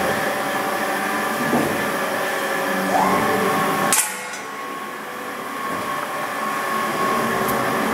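Haas SL-30 CNC lathe running, a steady hum of several tones with a rising whine twice in the first three seconds. A sharp click comes about four seconds in, after which the sound is quieter for a few seconds before the hum returns.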